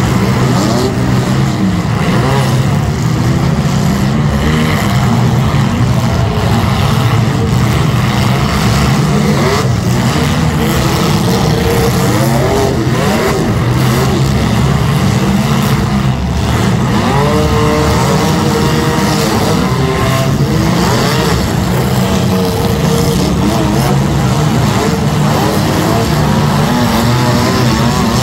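Several compact demolition derby cars' engines revving together, loud and continuous, their pitch rising and falling again and again as the cars accelerate to ram one another, with a few dull knocks from collisions.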